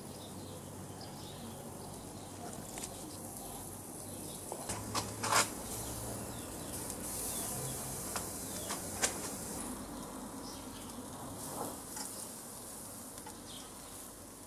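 Outdoor background with insects buzzing, then pork sizzling on a grill over charcoal embers, with a few sharp pops and crackles.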